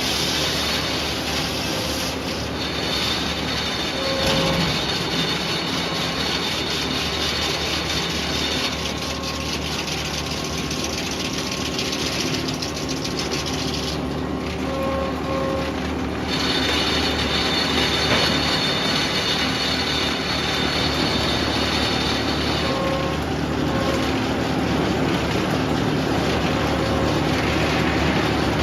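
Sawmill running, its blade cutting through red oak: a steady machine noise with a high whine that drops out for about two seconds halfway through, then returns.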